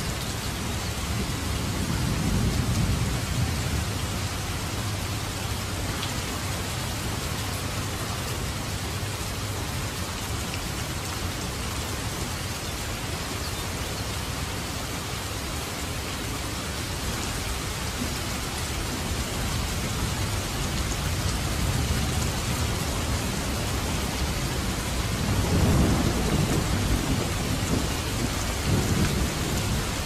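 Steady rain, with low rumbles of thunder swelling about two seconds in and again near the end.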